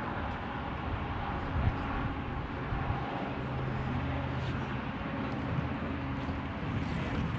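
Steady low hum and rumble of outdoor background noise, like an engine or traffic running, with a few faint clicks.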